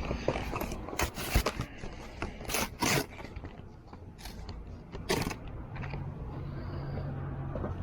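Scrapes, rubs and sharp clicks of bike brake parts being handled, with clusters about a second in, near three seconds and about five seconds in, over a low steady hum.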